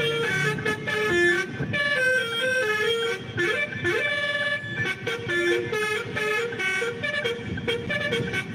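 Telolet basuri melodic horn playing a tune as a quick run of stepped notes, over a low vehicle rumble.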